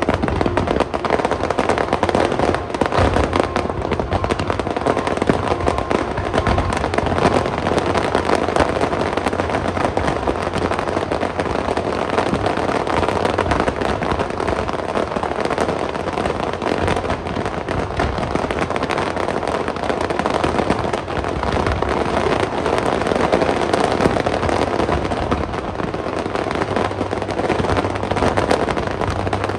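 Fireworks display: a dense, unbroken barrage of rapid crackling and bangs with no pause.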